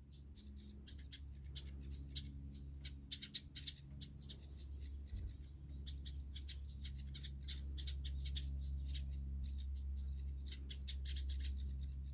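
A brood of nestling birds cheeping continuously in rapid, short, high chirps, over a steady low hum.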